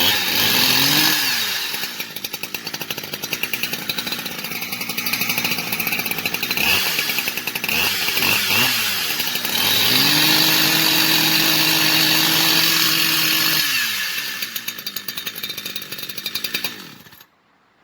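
Greencut GS750X 75cc two-stroke chainsaw engine running warm: it idles with several quick blips of the throttle, is held at high revs for about four seconds, drops back to idle and is switched off near the end.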